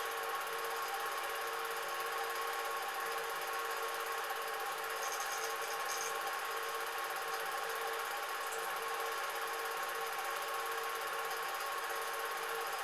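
Cine film projector running: a steady mechanical whirr with a constant hum.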